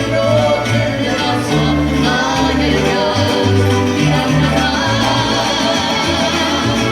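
Mariachi band playing: a pulsing bass line under held melody notes, one of them wavering with vibrato near the end, and possibly a singing voice.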